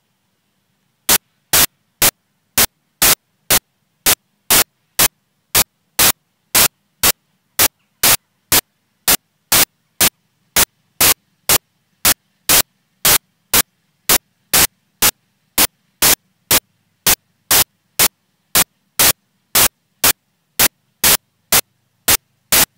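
Loud, short bursts of static repeating evenly at about two a second, starting about a second in. They sound like a digital glitch in the recording rather than anything in the field.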